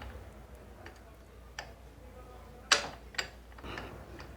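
A few sharp metallic clicks and taps as a motorcycle starter reduction gear is worked by hand into mesh with the gear behind it and the starter motor. The loudest click comes near the middle.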